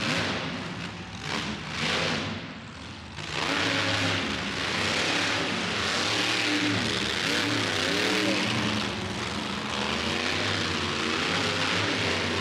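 Monster truck engine blipped in short bursts, then run hard and loud from about three seconds in, its pitch rising and falling with the throttle.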